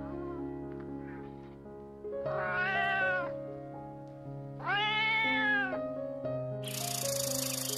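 Domestic cat meowing: two long, drawn-out meows a couple of seconds apart, over background music. A loud high hiss of noise comes in near the end.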